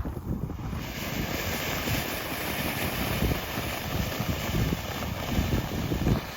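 Ground fountain firework spraying, with a steady rushing hiss that swells about a second in over a dense low crackle.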